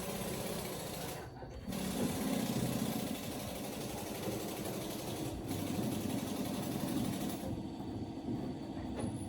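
Restored rice winnowing fan mill running, a steady fast mechanical rattle with a hiss over it as rice is cleaned.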